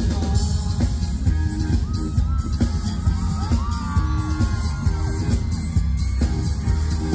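Live band playing a Thai pop-rock song through a loud PA, with heavy bass and a high lead line that bends up and down in pitch in the middle.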